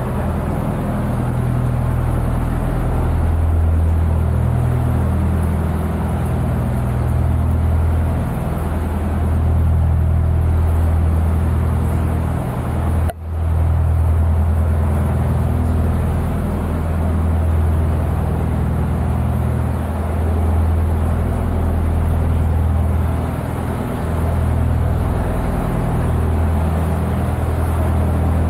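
A narrowboat's diesel engine running steadily at cruising speed, a deep continuous drone, echoing off the walls of the stone and brick canal tunnel. The sound cuts out for a split second near the middle.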